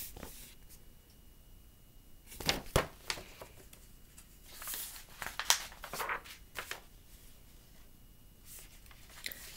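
Pages of a picture book being handled and turned: a few short papery rustles and crinkles with quiet room tone between.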